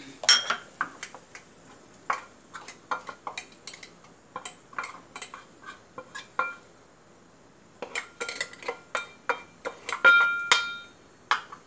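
Metal spoon scraping and clinking inside a small stainless-steel pot while spices are spooned out, a run of sharp clinks and scrapes. The pot rings briefly on several strokes in the later part, loudest about ten seconds in.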